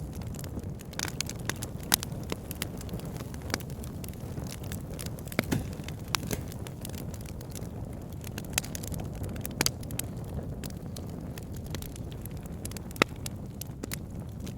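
Campfire burning: a steady low rush of flame with irregular sharp crackles and pops of burning wood, a few louder snaps among them.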